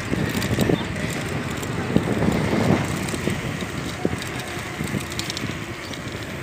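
Bicycle riding along a concrete path: steady tyre and wind noise with wind buffeting the microphone, and a few short knocks from the bike jolting over the surface.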